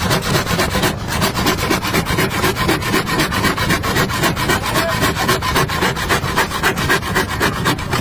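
A hand tool scraping or rasping across wood in fast, even strokes, several a second, then stopping.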